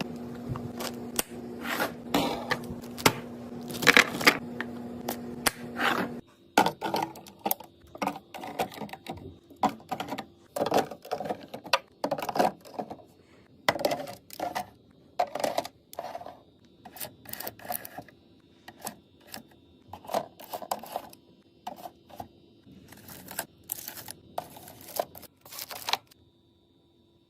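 Containers being set down and arranged in a fridge: an irregular run of clicks, taps and clinks of hard containers knocking together. A steady hum runs under the first part and stops abruptly about six seconds in.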